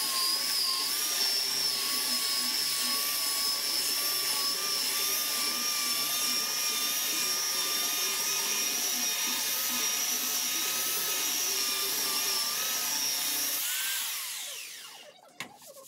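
Handheld electric belt sander running steadily with a high whine as it sands the end-grain face of a wood slab. About fourteen seconds in it is switched off and the whine falls in pitch as the motor winds down, followed by a single click near the end.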